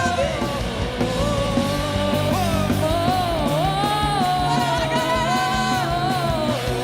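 Gospel rock band music: a full band playing, with one lead melodic line bending and sliding in pitch over steady bass and drums.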